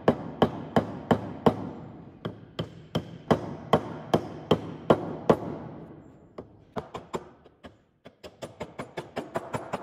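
A mallet knocking wooden dowels down into glued holes in a wooden board, about three firm blows a second. They stop a little past halfway, and after a short lull lighter, quicker taps follow.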